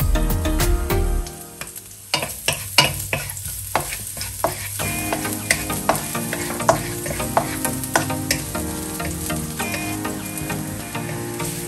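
Minced garlic sizzling in hot oil in a non-stick frying pan while a wooden spatula stirs it. Sharp clicks and scrapes of the spatula against the pan begin about two seconds in.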